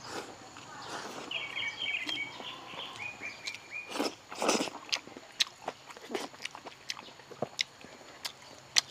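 Close-miked biting, chewing and lip smacks of a person eating a mouthful of braised pork belly, in short irregular clicks. A bird chirps in the background from about a second in to about three and a half seconds in.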